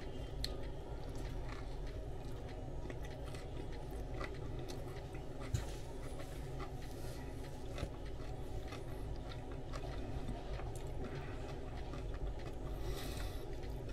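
A person chewing a mouthful of sub sandwich, faint wet mouth clicks over a steady low hum, with one sharper click about five and a half seconds in.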